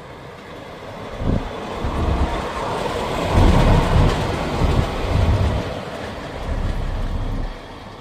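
DB class 218 diesel-hydraulic locomotive running light past, its V12 diesel engine swelling to its loudest as it goes by about halfway through, then fading. Low wheel knocks over the rail joints come through the middle.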